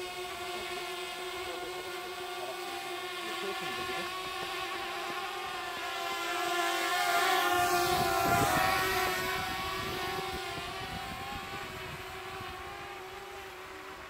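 Small quadcopter drone's propellers whining with a steady multi-toned buzz, growing louder as it flies overhead about eight seconds in, then fading as it moves away.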